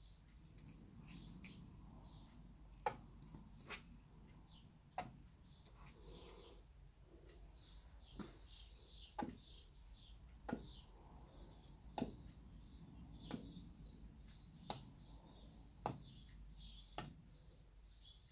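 Quiet, sharp taps about once a second from a hand dabbing paint onto a stretched canvas, with faint bird chirps behind.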